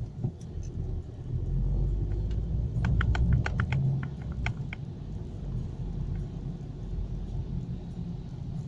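Car driving, a steady low rumble of engine and road noise, with a quick run of about a dozen small clicks about three seconds in.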